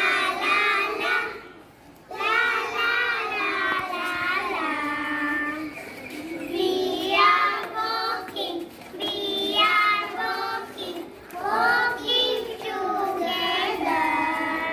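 Children singing an action song, phrase after phrase with short breaths between.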